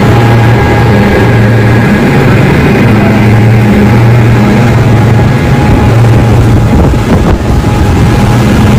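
Speedboat with twin outboard motors running at speed, a steady engine drone mixed with the rush of the wake.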